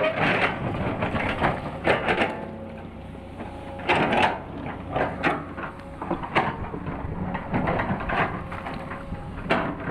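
Hydraulic excavator at work: its engine runs steadily under irregular metallic clanks and scrapes, some louder, about four seconds in and again near the end.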